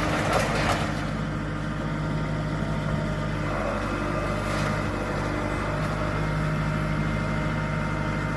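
Heavy machinery engine running steadily at a constant pitch, with two bursts of rough noise from work on the debris: one in the first second and one about four seconds in.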